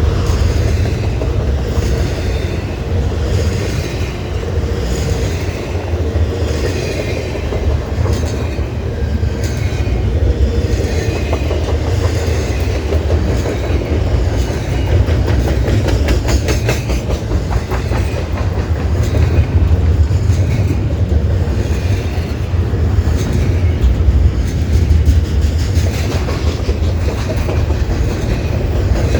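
Freight train rolling past, a steady rumble of wheels on rail with a repeating clickety-clack as the cars' wheels cross rail joints, and a quick run of sharper clacks about halfway through.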